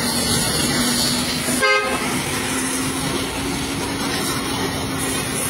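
High-pressure washer jet spraying water steadily onto the rear of a truck's box body, a continuous hiss with a steady hum underneath. Just under two seconds in, a vehicle horn gives one short toot.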